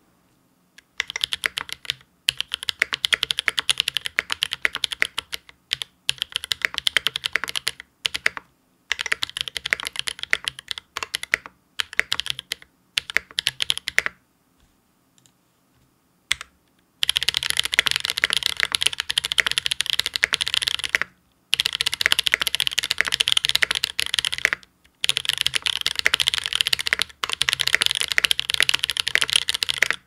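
SPACE65 R1 mechanical keyboard with lubed Drop Invyr Holy Panda tactile switches, a carbon fiber plate and GMK keycaps, typed on fast in runs of a few seconds. There are short pauses between runs and a longer near-stop about halfway through, with only a few single keystrokes.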